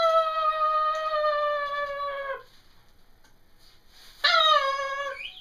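Blue-and-gold macaw giving two long, drawn-out calls: a high held note of about two and a half seconds, then a shorter one of about a second near the end. Both sag slightly in pitch.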